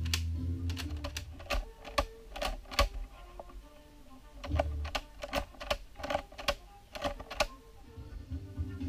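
Sharp plastic clicks from the sequential gearbox of a LEGO Technic 42056 Porsche 911 GT3 RS as it is shifted through its gears by hand: about a dozen irregular clicks, some in quick pairs, over background music.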